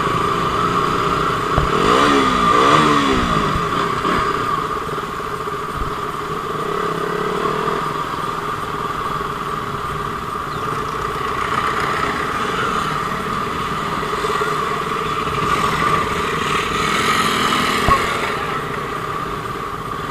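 KTM motorcycle engine running at low speed, with a rise and fall in pitch about two seconds in.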